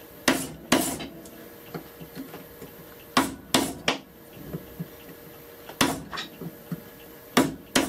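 Woodworking chisel driven into wood by hammer blows, about eight sharp knocks at irregular intervals with faint scraping between, chopping out the wood between two drilled holes in a plane body to open a passage for a screw.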